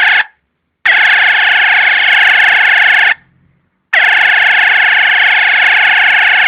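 Homemade 12 V PIC-microcontroller police siren giving a loud, steady electronic horn tone in blasts: one cuts off just after the start, a second lasts about two seconds, and a third begins about four seconds in and keeps going.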